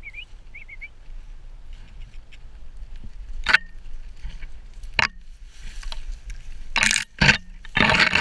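Dry, snow-covered prairie weeds and grass stalks brushing and scraping as the terrier and camera push through them: several short rustling sweeps, the longest and loudest near the end, over a steady low rumble.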